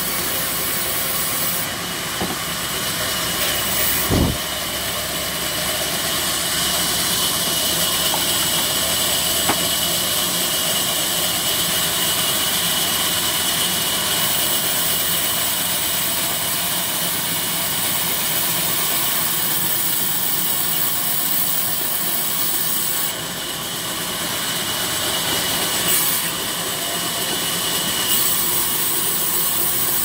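Band sawmill running, its blade cutting banyan timber: a steady sound strongest in the high range, with one sharp knock about four seconds in.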